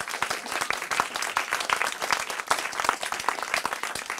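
Audience applauding: many people clapping at once in a dense, steady run of claps.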